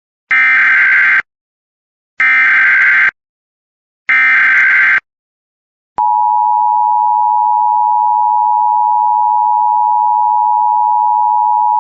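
Emergency Alert System tones: three one-second bursts of SAME header data, about a second apart, then, about six seconds in, the steady two-tone attention signal (853 and 960 Hz together) begins and holds.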